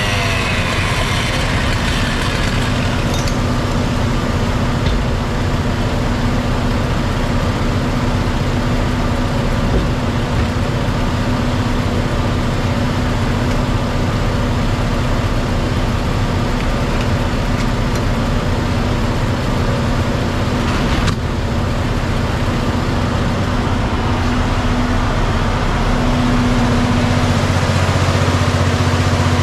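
Fire truck engine running steadily at idle, a constant low drone that grows louder near the end.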